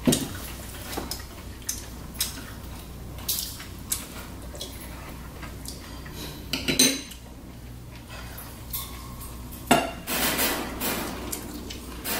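Forks and knives clinking and scraping on plates as food is cut, a string of separate clinks and scrapes.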